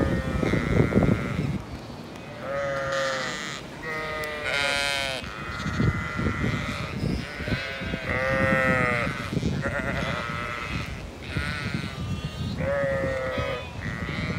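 Zwartbles ewes and lambs bleating, a dozen or so wavering calls one after another and sometimes overlapping, with wind rumbling on the microphone underneath.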